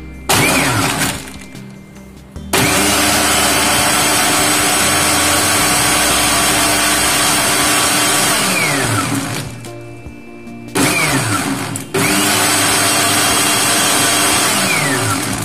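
Electric blender running in four bursts, two short and two long, blending milk, sugar, instant coffee and ice into cold coffee. At the end of each burst the motor's whine falls in pitch as it coasts to a stop.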